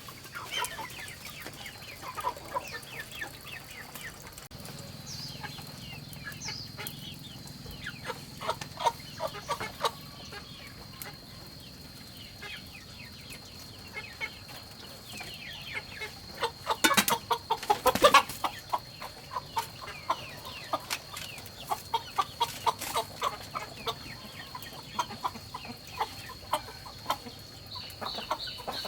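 Farmyard chickens clucking and calling in short, repeated notes, with a louder flurry of calls about 17 seconds in. A steady thin high whine runs underneath.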